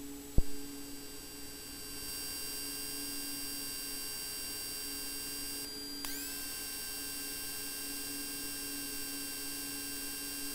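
Faint steady electrical hum and whine made of several steady tones, with a single click about half a second in and a brief shift in the higher tones about six seconds in. No engine is heard.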